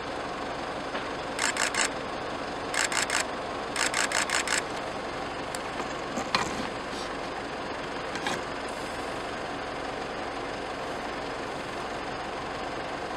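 Vehicle engines idling steadily on a roadside. In the first few seconds there are three short groups of rapid clicking pulses, and a single sharp click comes about six seconds in.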